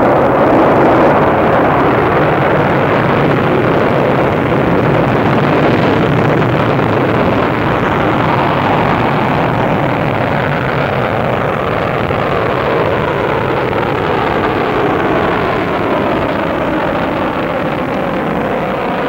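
Proton-K rocket's first-stage engines (six RD-253s) at liftoff: a loud, steady blast of engine noise that starts suddenly and fades slightly as the rocket climbs away.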